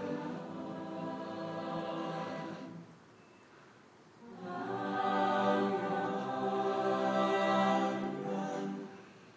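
Mixed-voice a cappella group singing held chords: one chord stops about three seconds in, and after a short pause a louder, fuller chord is held for about four seconds.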